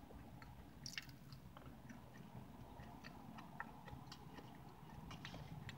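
Faint close-up chewing of a mouthful of crumb-topped Dutch apple pie: soft, scattered wet mouth clicks and smacks over a low steady rumble.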